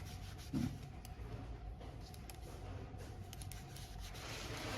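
Quiet computer mouse button clicks, a dozen or so at irregular spacing, with a soft rustle near the end.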